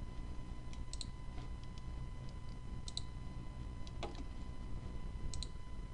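Computer mouse button clicking about four times, most clicks heard as a quick double tick of press and release, over a steady low electrical hum.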